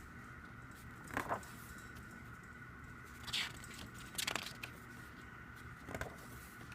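Four brief rustles and light handling noises of paper and card from a music album's printed inserts being handled, over a faint steady electrical hum.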